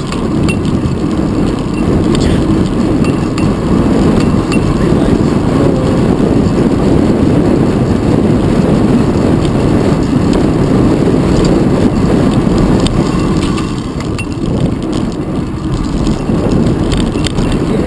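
Loud, steady wind rush and road rumble on a GoPro mounted on the handlebars of a moving fixed-gear bicycle, with a few faint clicks.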